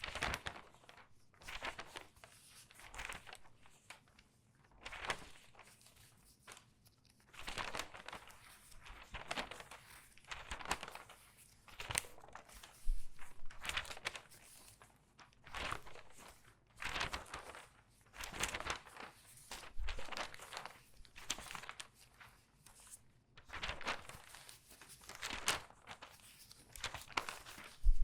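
Pages of a regular newspaper turned quickly front to back, each turn a papery rustle and crinkle, roughly one a second.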